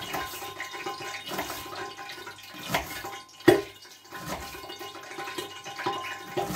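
Hot sunflower oil hissing steadily in a frying pan under a lid, spitting with irregular sharp pops because a little water was left in the pan. A knife also chops onion on a wooden cutting board.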